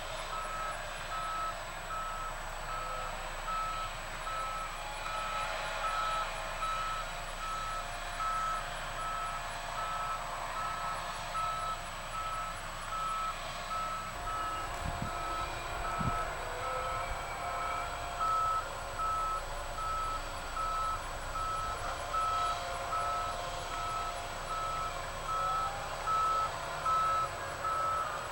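Reversing alarm on heavy construction machinery beeping steadily, about once a second, over the running engine, with two low thuds about halfway through.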